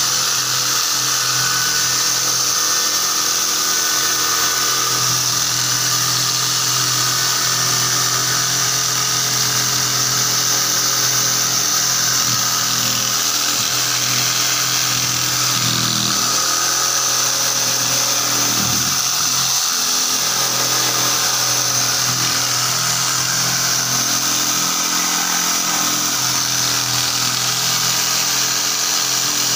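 DongCheng electric jigsaw running steadily, its reciprocating blade cutting a curved line through a wooden board.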